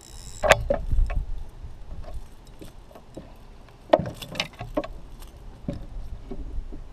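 Scattered knocks and clicks of a just-caught largemouth bass being lifted and handled in a canoe, the loudest about half a second in and about four seconds in.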